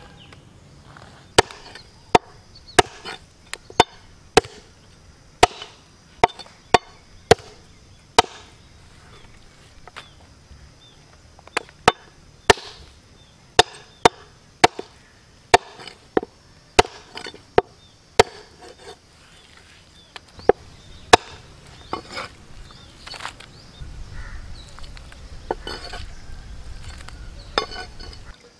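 Cleaver chopping through rooster meat and bone on a wooden log-slice chopping block: dozens of sharp strokes, about one or two a second, with a short pause in the middle and softer strokes near the end.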